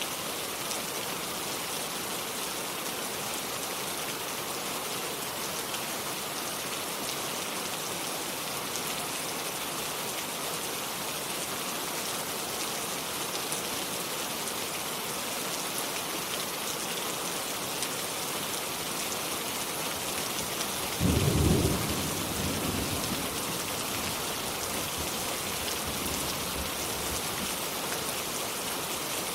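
Steady rain falling in a forest, an even hiss of drops. About twenty-one seconds in, a loud low boom trails off into a rumble over the next few seconds.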